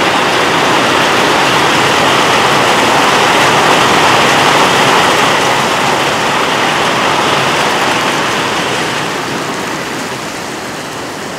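Heavy downpour of rain, a dense steady rushing hiss of water pouring down, loud enough that the drainpipe cannot carry it away; it eases somewhat in the last couple of seconds.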